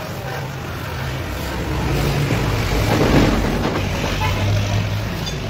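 Bench-grinder motor running with a steady low hum, spinning an abrasive sanding disc against a plastic headlight lens. The scuffing noise of the lens on the disc swells, loudest about three seconds in.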